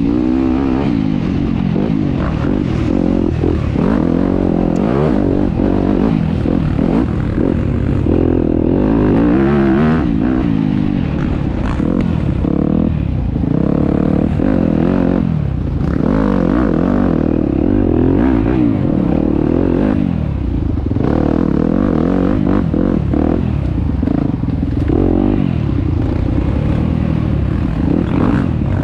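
Enduro dirt bike engine revving hard, its pitch climbing and falling again every second or two as the throttle is worked. It drops off briefly a few times, about halfway through and again near the end.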